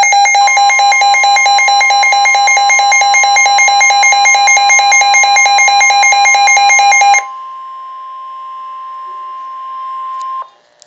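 Midland weather radio sounding its warning alarm: a loud, rapidly warbling electronic siren that stops about seven seconds in. Under it and after it, a steady single tone plays through the radio's speaker. This is the NOAA Weather Radio warning alert tone. It cuts off with a click near the end.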